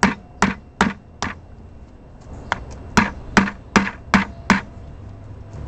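A hammer driving a nail through a catfish's head into a wooden board: four quick blows, a pause of about a second, then six more at a little over two a second.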